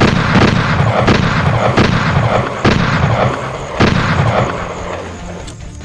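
A rapid series of explosion booms, about six loud blasts over roughly four seconds, each trailing off before the next, then fading away.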